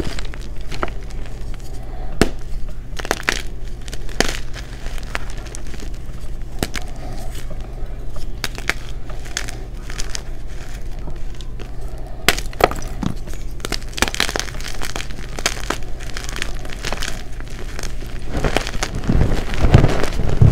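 Blocks of gym chalk cracking and crumbling as bare hands crush them into loose powder: a string of sharp crunches and snaps, thickest near the end. A low steady hum runs underneath.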